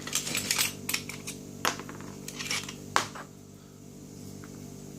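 Small metal clicks and rattles of a lock cylinder and picking tools being handled: a quick run of clinks at the start, then two sharp single clicks, against a steady low hum.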